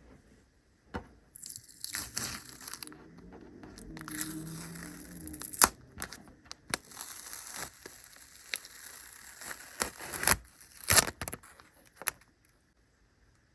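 Rustling, crinkling handling noise with scattered sharp clicks and snaps, as the freshly soldered LED light strip is moved about and handled; it starts about a second in and stops near the end.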